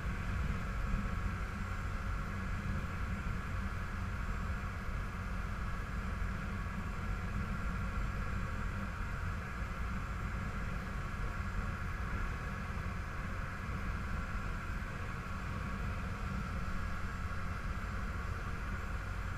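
A small boat's engine running steadily while under way, a constant drone that does not change.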